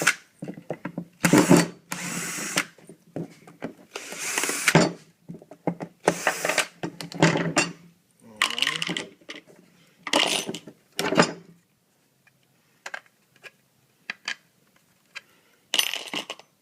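Power drill driving screws out of a particle board drawer's front and handle in a series of short bursts, each under a second, with a few light clicks during a pause near the end.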